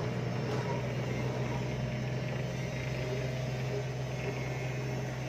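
Truck engine idling: a steady, unchanging low hum.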